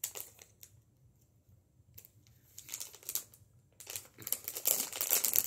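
A few snips of scissors cutting into a foil blind-bag packet, then the foil wrapper crinkling loudly as it is pulled open by hand from about four seconds in.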